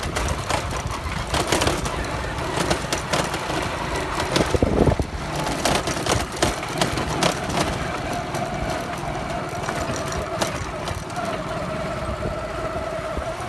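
Motorcycle engine running while riding over a bumpy dirt track, with frequent rattling knocks from the bumps and a steady hum in the second half.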